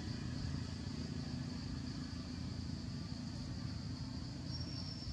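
Steady low rumble of outdoor background noise under a constant high hiss, with a faint thin high whistle coming in near the end.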